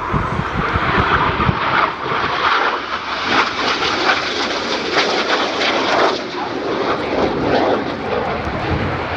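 Jet aircraft flying a display pass, its engine noise steady and crackly. A low chopping pulse is heard for about the first second and a half.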